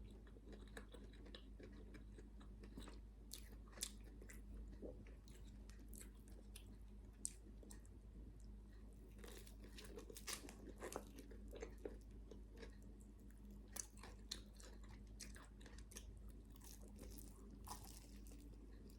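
A person chewing and biting crunchy fried food close to the microphone: irregular crisp crunches and wet chewing clicks, faint, over a steady low hum.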